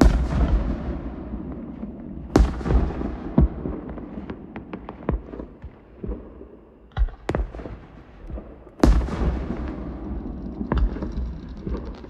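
Fireworks display: aerial shells bursting with deep booms that rumble and fade away. The big bursts come at the start, about two and a half seconds in and about nine seconds in, with quicker sharp pops in between.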